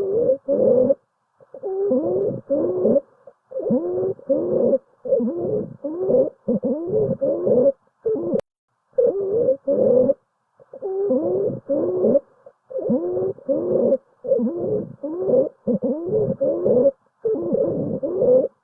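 Recorded lung sounds heard through a stethoscope, with a musical, pitched quality (a continuous adventitious breath sound). Short tones with bending, mostly falling pitch come a few times a second in runs, with brief pauses between.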